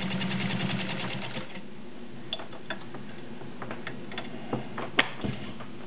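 Kenmore Model 29 straight-stitch sewing machine running at speed, a fast even clatter of stitching through a couple of layers of leather, which stops about a second and a half in. A few light clicks and knocks follow, with one sharp click near the end the loudest.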